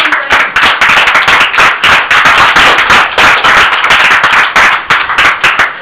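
A small group of people clapping their hands, dense and continuous.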